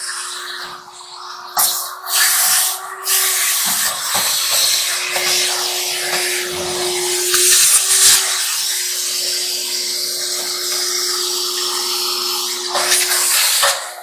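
Vacuum cleaner running, its hose and wand drawn over the top of a clothes dryer: a steady motor hum under rushing suction, with louder surges now and then as the nozzle moves over the surface.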